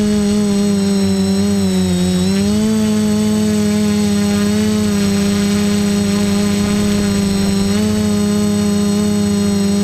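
Quadcopter's electric motors and propellers whining steadily, heard close up from the camera mounted on the craft. The pitch dips about two seconds in and rises again, then shifts slightly a few more times as the motor speed changes with the throttle.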